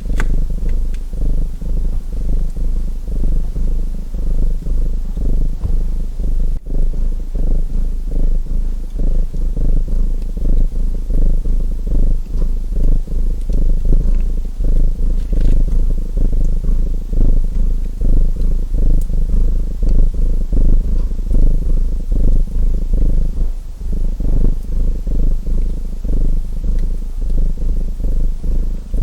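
Domestic cat purring close up, a steady fast-pulsing low rumble, with a few faint crackles from a wood fire.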